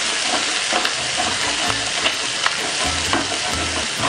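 Ginger-garlic paste sizzling in hot oil in a frying pan, stirred with a spatula. A steady frying hiss runs throughout, with scattered clicks of the spatula scraping and knocking against the pan.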